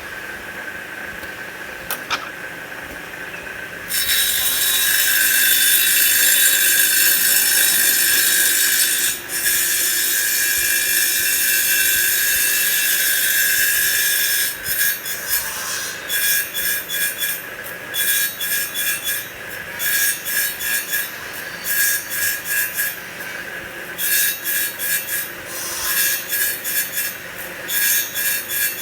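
CNC wood lathe with automatic blank feeding cutting a spinning wooden blank into beads. The machine runs on its own at first, with a click about 2 s in. Then the tool makes one long, loud, continuous cut, followed by a string of short cutting strokes of a second or less each.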